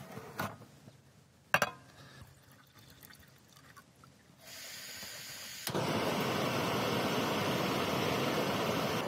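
Portable gas camp stove being lit: a few seconds in, gas starts to hiss softly, then the burner catches and runs with a loud, steady rushing sound. Two small clicks come before it.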